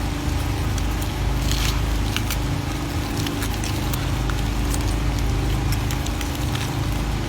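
An engine running steadily, with scattered small clicks and crackles.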